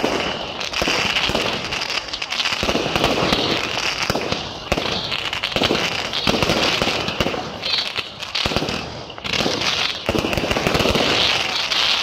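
Firework display: a dense barrage of aerial shell bursts and crackling, several bangs a second, with a brief lull about eight to nine seconds in.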